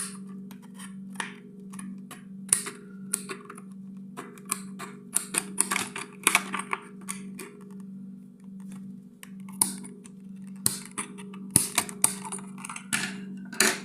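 Plastic blister packaging and cardboard backing of a Hot Wheels toy being handled and pried open: irregular crinkling and sharp clicks, busiest in the middle and near the end, over a steady low hum.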